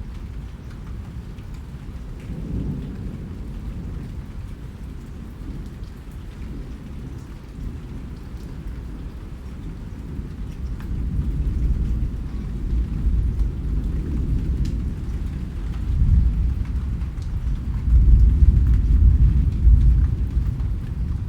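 Steady rain with faint scattered drop ticks, under a deep rolling rumble of thunder that swells through the second half and is loudest near the end.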